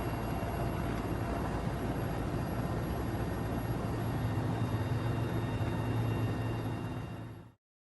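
A vehicle's engine running steadily under a broad rushing noise, with a low hum that swells slightly partway through; the sound cuts off abruptly near the end.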